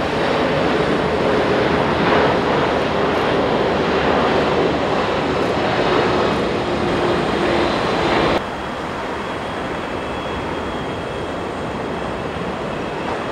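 Boeing 747-400 freighter's four jet engines on landing approach: a loud, steady jet noise with engine tones slowly falling in pitch as it passes. About eight seconds in, the sound cuts abruptly to a quieter, duller jet noise as the aircraft is on the runway at touchdown.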